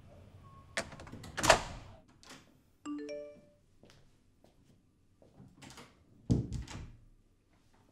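An apartment door's latch clicks and the door is pushed open with a loud knock. About three seconds in comes a short electronic chime of a few stepped notes, and the door shuts with a heavy thud and rattle near the end.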